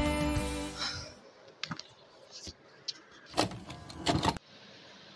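Background music fading out in the first second, then quiet room tone with a few faint clicks and a short burst of noise near the end that cuts off suddenly.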